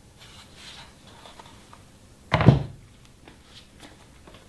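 A wooden table-saw jig set down with a single heavy thunk about two and a half seconds in, among light handling rustles.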